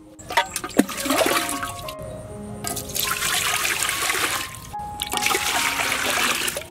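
Water pouring steadily into a metal cooking pot in three stretches, with brief breaks between them, after a few sharp knocks at the start.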